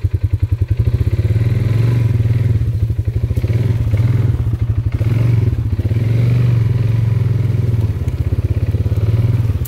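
Small off-road vehicle engine running at low speed with a steady low throb. Its pulsing smooths out about a second in as the revs rise a little.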